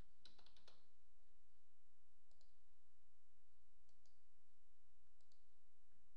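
Computer mouse clicks: a quick run of clicks in the first second, then a pair of clicks three times. A faint low hum runs underneath.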